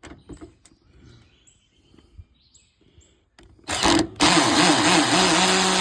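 Power drill driving a screw home on the lowest torque setting: a short burst about three and a half seconds in, then a steady run of about two seconds.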